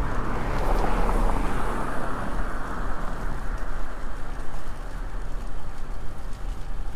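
Steady city traffic and road noise picked up by a microphone on a moving bicycle, with a continuous low rumble; a little louder in the first couple of seconds.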